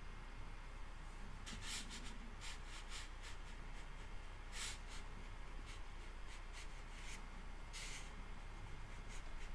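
Damp watercolour brush tapping and stroking lightly on Arches 140-lb watercolour paper: a series of faint, short, scratchy touches at an irregular pace.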